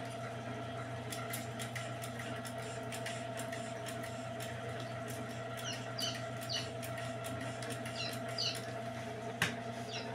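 Chick peeping inside a running egg incubator: a handful of short, high, falling peeps in the second half, over the incubator's steady hum.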